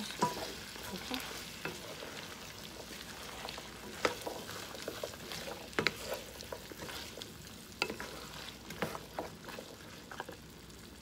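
Wooden spatula stirring ground beef and diced potatoes in a large pan: scattered scrapes and taps against the pan over the steady sizzle of the frying meat.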